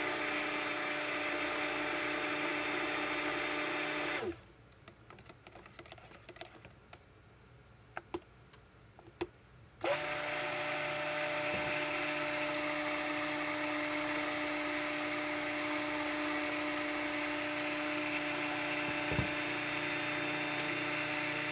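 Stick (immersion) blender running in soap batter in a slow-cooker crock, blending it up towards trace. It runs steadily for about four seconds, stops for about six seconds with a few light knocks, then starts again and runs steadily to the end.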